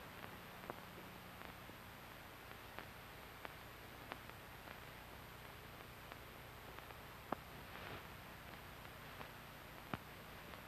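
Faint steady hiss and low hum from an old archive recording, with scattered clicks and pops, two of them louder near the end.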